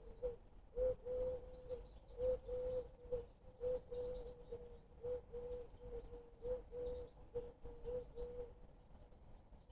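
A pigeon cooing: a long run of low hooting notes at one steady pitch, short ones and drawn-out ones in small groups, which stops shortly before the end. Faint high chirps from small birds sound in the background.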